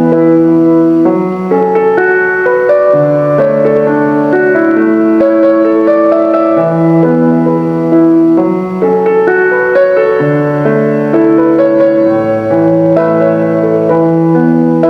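Background music: a piano playing a gentle sequence of sustained chords and melody notes.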